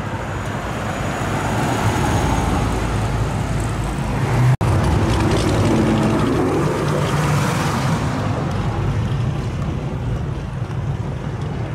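Cars driving past on a street: a steady low engine rumble with tyre and road noise. About four and a half seconds in the sound drops out for an instant, then more cars approach with a fuller engine note.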